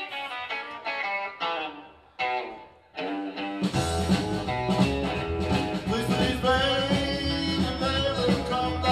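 Live band playing: an electric guitar plays short picked phrases alone, then about four seconds in the bass and drums come in and the full band plays on with a steady beat.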